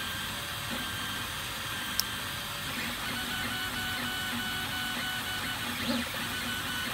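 Makerfarm Pegasus 12 3D printer printing: its stepper motors whine in short tones that keep changing pitch as the dual-extruder head moves, over a steady whir from the print head's two cooling fans. A sharp tick comes about two seconds in.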